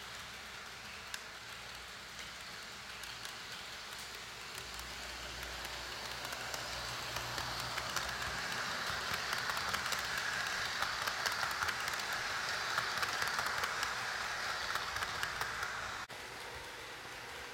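HO scale model train running past on the track, its wheels rattling and clicking over the rails with a motor whir. It grows steadily louder as it approaches, then cuts off abruptly near the end.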